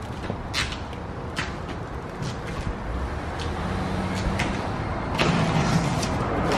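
Protective plastic wrap and tape being peeled and pulled off a newly fitted car diffuser: crinkling plastic with several short, sharp rips, getting louder in the second half.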